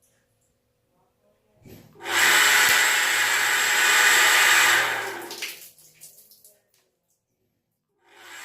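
Water gushing from an opened tap, starting about two seconds in and tailing off a few seconds later.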